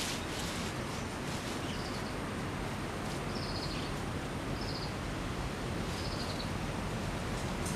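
Steady hiss of rain falling, with a short, high trilled chirp from a small creature repeating about every second and a half.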